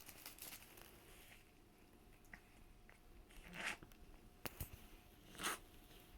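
A cat with a cold breathing noisily through a congested nose, a wet snuffling sound like nasal mucus being sucked in. Two breaths about two seconds apart stand out as the loudest, with a single sharp click between them.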